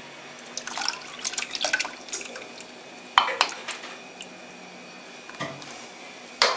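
Buttermilk pouring and dripping through a plastic strainer into a steel bowl, with a scatter of small clinks and then two sharp knocks against the steel, one about three seconds in and one near the end.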